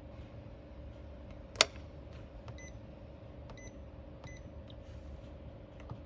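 Liebherr fridge's electronic control panel: one sharp click about a second and a half in, then three short electronic beeps over the next two seconds while the On/Off button is held and the unit switches off. A steady hum runs underneath.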